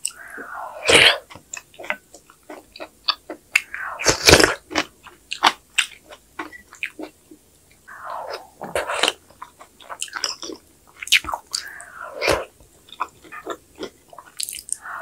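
A person eating kimchi sujebi: wet chewing of the soft dough and kimchi, with many small mouth clicks. Louder slurps come about every four seconds, four in all, as spoonfuls of soup and dough are drawn in.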